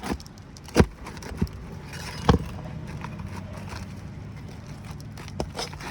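Sharp metal knocks of a hammer striking a roof snake hooked under an asphalt shingle, working a roofing nail loose. There are three blows in the first two and a half seconds and one more near the end.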